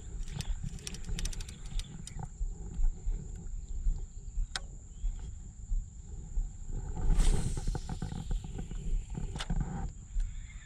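Wind rumbling on the microphone, with scattered clicks and knocks from handling a fishing rod and spinning reel, a louder rustling burst about seven seconds in, and a steady high-pitched whine throughout.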